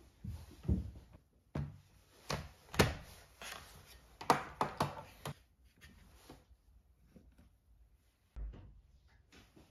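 Soft slippered footsteps on a wooden floor, then a laptop, its charger brick and power cable handled on a wooden table: a quick string of clicks, taps and knocks as the cord is unwound, the lid opened and the plug pushed in. A single duller thump comes near the end.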